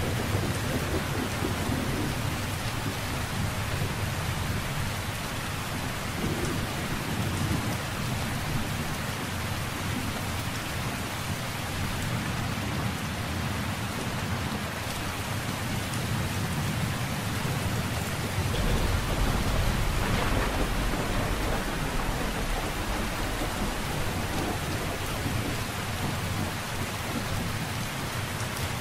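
Steady rain falling, with a low rumble of thunder swelling for a few seconds about two-thirds of the way through.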